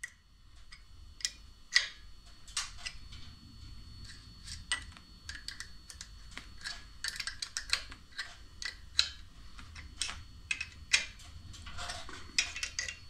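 Irregular light clicks and knocks of small metal parts and hand tools being handled, several a second at times, with a few louder knocks.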